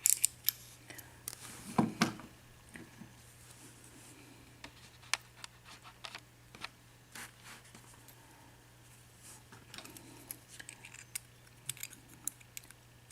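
Small metallic clicks and scrapes as a brass 4-pin IFAM padlock is taken apart and its plug is slid out of the body. The clicks are scattered and irregular, loudest about two seconds in.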